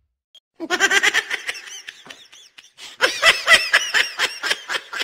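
A person laughing hard in rapid, evenly spaced bursts, starting about half a second in, easing off briefly, then laughing again near the end.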